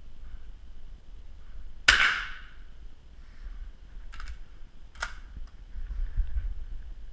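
A single rifle shot about two seconds in, a sharp crack that echoes briefly off the range walls. It is followed by two sharp clicks nearly a second apart as the rifle's action is worked to reload.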